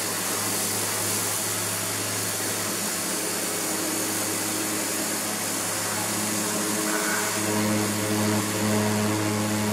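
Kärcher pressure washer running, its motor and pump humming steadily under the hiss of the high-pressure water jet spraying the plastic sun lounger. About seven seconds in, the pitched hum grows stronger and a little louder.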